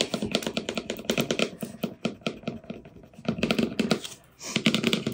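Clear transfer tape crackling with a dense run of small ticks as it is peeled slowly off the vinyl decal's paper backing, with a weeding tool scraping over the tape to press the letters down.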